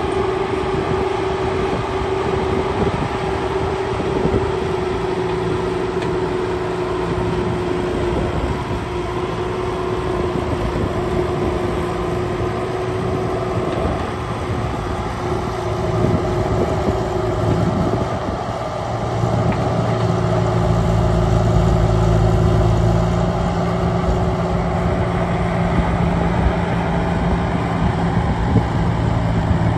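Bobcat T250 compact track loader's diesel engine running under load with a steady whine over it, lifting and carrying a compact tractor on its forks. It grows louder and heavier about two-thirds of the way through as the loader works harder.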